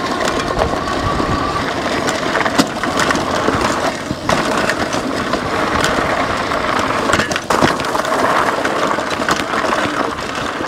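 Lectric XP 3.0 e-bike ridden over a rough, rocky trail: its 20-inch by 3-inch fat tyres crunching over gravel and stones, with constant clattering and rattling from the bike and the loose accessories bouncing on it, and rocks knocking against the fenders.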